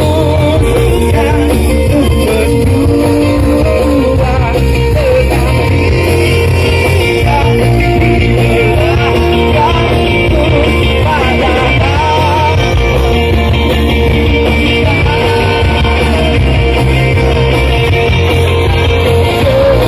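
Live pop-rock band playing loud through a stage PA, with guitar and a heavy steady bass, and a singer's voice coming in and out.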